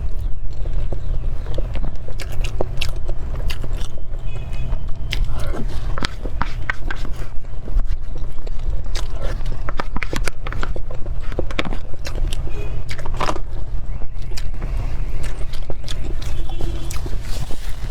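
Close-miked eating of cream cake: irregular bites, wet chewing and mouth smacks, over a steady low hum.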